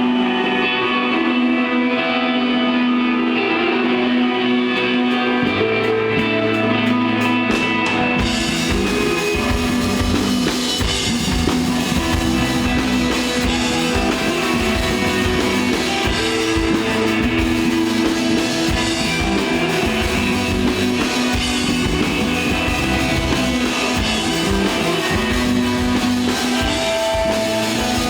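A rock band playing live: an electric guitar line rings out alone, bass guitar comes in about five seconds in, and the drum kit joins about three seconds later, the full band then playing on together.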